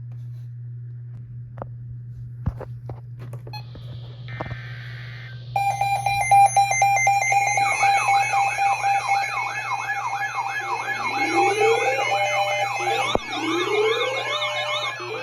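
Electronic emergency-alert alarm tone that starts about five and a half seconds in: a steady high tone under a fast warbling siren-like sweep, joined by rising whoops about every two seconds. Before it there is only a low hum with scattered clicks and a brief hiss.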